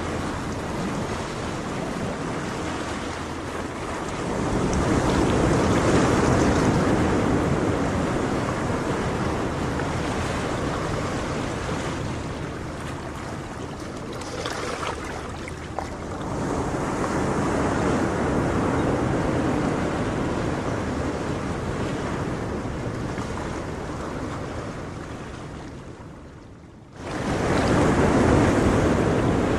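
Ocean surf: waves breaking and washing in, a steady rush that swells about every ten seconds, three surges in all, the last coming straight after a brief lull.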